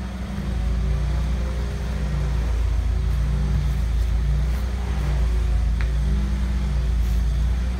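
A steady low engine rumble with a humming tone that wavers slightly in pitch.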